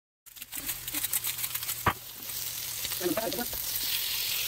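Raw chicken thighs sizzling on an electric griddle, a steady frying hiss. A sharp click sounds about two seconds in.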